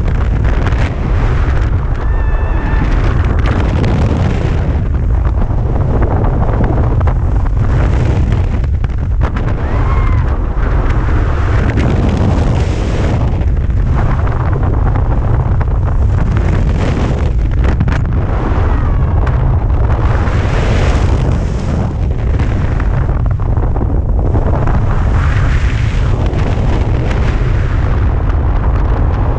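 Heavy wind rushing over the microphone of a tandem paraglider spinning through SAT manoeuvres: a constant deep buffeting rumble with a hiss that swells and fades every few seconds as the airspeed changes through the rotation.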